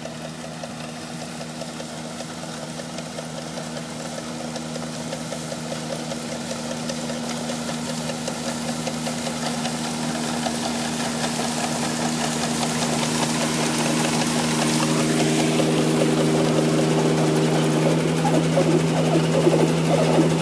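Kubota R1-14 combine harvester's engine running at a steady speed and growing steadily louder, with a rougher clatter coming in near the end.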